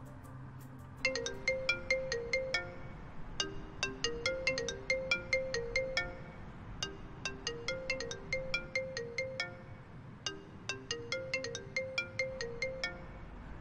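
Mobile phone ringing with an incoming call: a short ringtone tune of bright, plinking notes that starts about a second in and repeats over and over.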